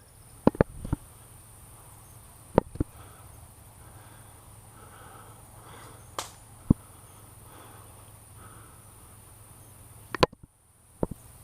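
Scattered sharp cracks of airsoft guns firing single shots, some in quick pairs, over a low steady outdoor background.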